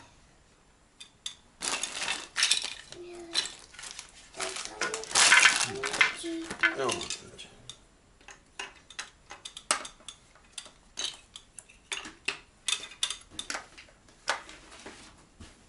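Dishes and cutlery clinking and clattering as tableware is handled: a dense run of knocks and clinks for the first several seconds, then scattered single clinks.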